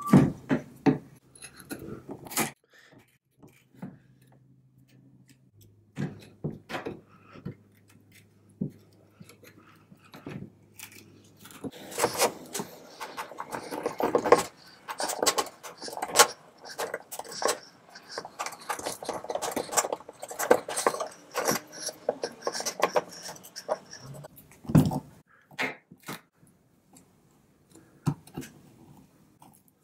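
A tack lifter and pliers pry decorative upholstery nails and gimp trim off a wooden chair seat frame: scattered metal clicks and scrapes, turning into a busy run of scraping and clicking for about twelve seconds in the middle. There is a single dull thud near the end.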